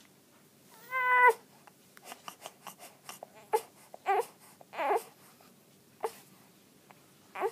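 A sleeping newborn baby making small vocal noises: a brief high squeak about a second in, then a series of short grunts and whimpers, with a run of soft clicks in between.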